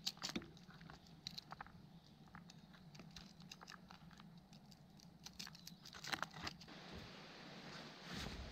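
Small dry clicks and scrapes of a pointed stick working against a slab of fir bark, in quick irregular runs. The loudest come just after the start and again around six seconds in, then they give way to an even background hiss.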